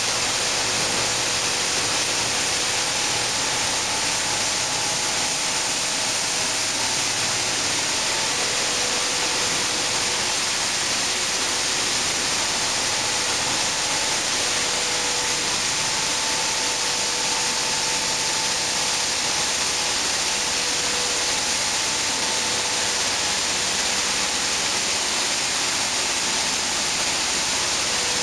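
Sunflower seed hulling machinery running: a loud, steady hiss of the hullers, fans and vibrating sieves with seeds rushing through them, and faint steady hum tones that fade in and out.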